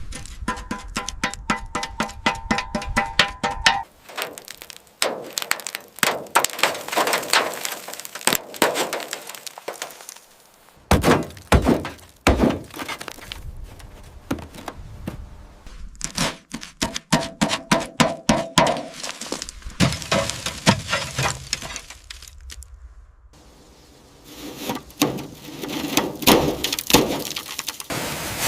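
Repeated sharp knocks and impacts of tools working on metal, in several separate stretches. There are bursts of fast rattling strokes near the start and again a little past halfway.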